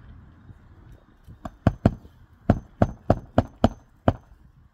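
Claw hammer striking under the tab of an asphalt roof shingle, driving a roofing nail: about nine sharp blows in quick, uneven succession starting about a second and a half in, each with a brief high metallic ring.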